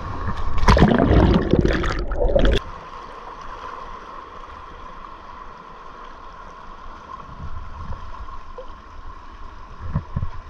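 Kayak paddle strokes splashing and water gurgling close to the microphone, cutting off suddenly about two and a half seconds in. A quieter steady rush of river water follows.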